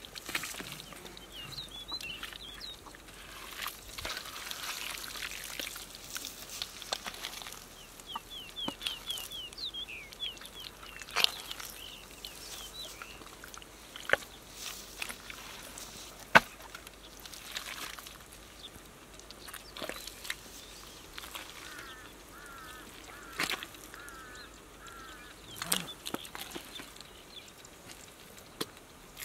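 Hands digging and squelching through thick wet mud, with scattered sharp wet slaps, the loudest about halfway through. Birds call in short runs of repeated chirps in the background.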